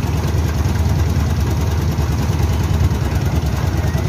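An engine idling steadily, a low even rumble with no change in speed.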